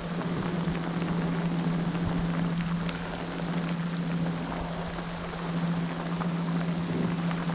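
Heavy rain pouring down: a steady hiss scattered with many small drop ticks, over a steady low hum.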